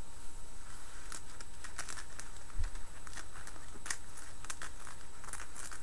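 Fingernails scratching and rubbing across a glossy magazine page in short, irregular strokes, with a single low thump about two and a half seconds in.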